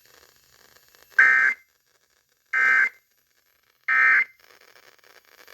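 Emergency Alert System end-of-message data signal: three short, identical buzzy digital tone bursts about 1.3 s apart, marking the end of the warning broadcast.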